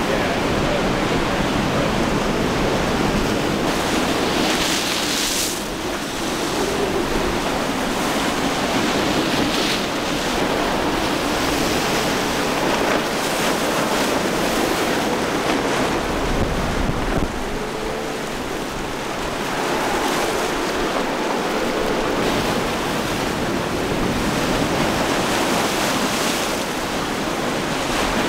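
Rough sea surf and breaking waves with heavy wind noise on the microphone; a passing boat's engine hums faintly underneath now and then.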